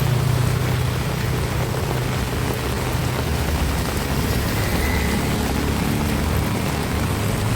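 Heavy rain pouring steadily, with a low rumble of wind underneath.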